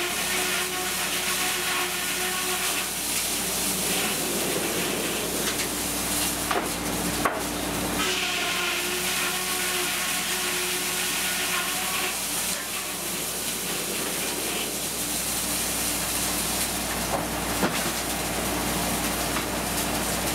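Circular sawmill running without cutting: a steady mechanical hum with a hiss, and two sharp clacks, one about seven seconds in and one later.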